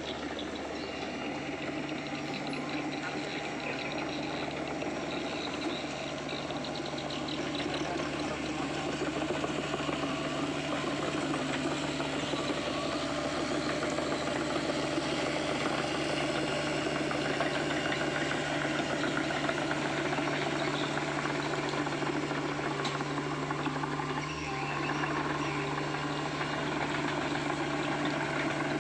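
Diesel engine of a heavy earthmoving machine running steadily, with a constant low hum.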